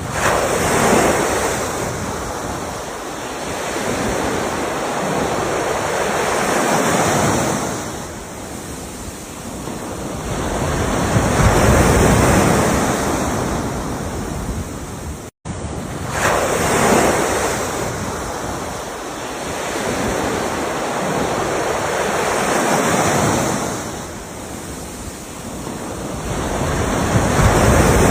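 Ocean waves breaking and washing in and out, each surge swelling and fading about every five to six seconds. The sound cuts out for a split second about halfway through.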